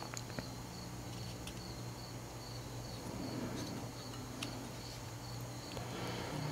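A few light plastic clicks from handling the DJI Avata's gimbal cover, over a steady low hum and a faint high chirp repeating about twice a second.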